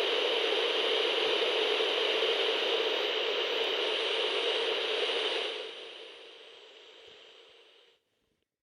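CB radio static: a steady rushing hiss with faint high whistling tones. It fades out from about five and a half seconds in and cuts to silence shortly before the end.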